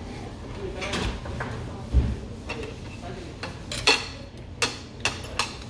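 Metal spoon clinking and scraping against a stone pot and dishes while eating, a series of short sharp clinks, with one dull knock about two seconds in.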